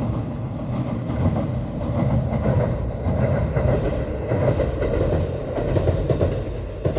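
Train passing close by: a steady rumble that builds over the first second and eases off near the end.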